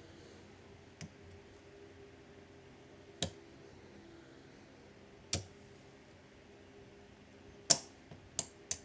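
Casino chips clicking against each other as stacks are handled and counted. Single clicks come about every two seconds, then a quick run of three or four near the end.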